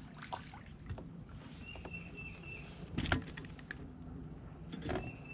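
A few sharp knocks and rattles from handling gear aboard a kayak, in two brief clusters about three and five seconds in, over a steady low background.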